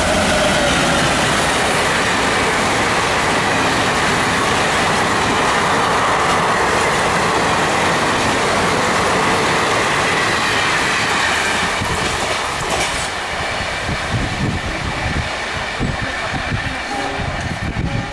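Express passenger train hauled by a WDM-3A diesel locomotive passing at speed: a loud, steady rush of wheels and coaches. After about thirteen seconds it eases into a rhythmic beat of wheels on the rails as the train pulls away.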